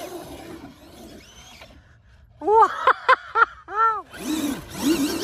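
RC car's brushless electric motor whine trailing off as the car speeds away. About halfway through comes a string of short rising-and-falling tones.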